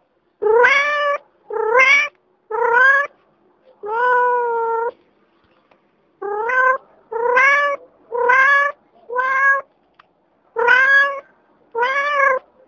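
Domestic cat meowing over and over: about ten short meows of roughly half a second each. One longer, drawn-out meow comes about four seconds in, followed by a pause of about a second before the meows resume.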